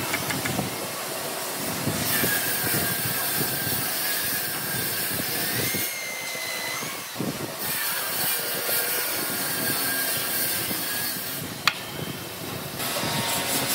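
A claw hammer scraping and levering against an old timber beam as it prises out old nails and a rusted metal rod, with a thin high whine behind it from about two seconds in. A single sharp knock comes near the end.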